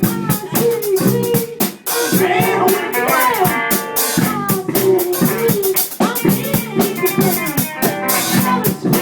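Band music: a drum kit playing a busy beat under a guitar line.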